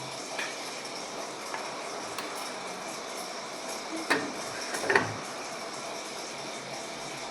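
LG top-load washing machine running with a steady mechanical whirr and low hum and scattered light clicks, with two louder knocks about four and five seconds in.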